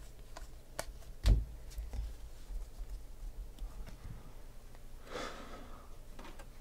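Trading cards being handled and set down on a tabletop: a few light clicks and taps, with one louder thump a little over a second in. A brief rush of noise about five seconds in.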